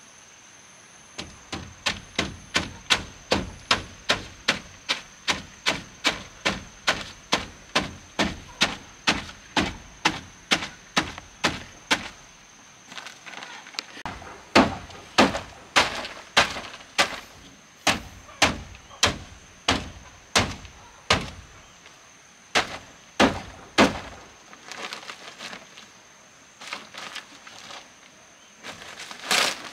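Repeated blows of a hand tool on wood: a fast, even run of strikes about two or three a second, then after a short pause a slower run of louder strikes, and a few faint ones near the end.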